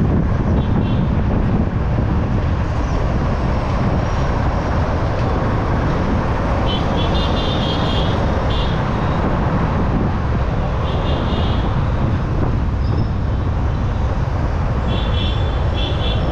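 Yamaha R15M motorcycle being ridden at steady speed: a constant rush of engine, tyre and road noise. Short high-pitched chirps or beeps cut in a few times, near the start, in the middle and near the end.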